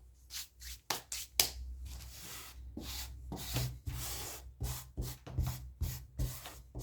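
Two abrasive sanding blocks rubbed hard against each other, a rough scraping in irregular strokes, some short and some drawn out for about a second.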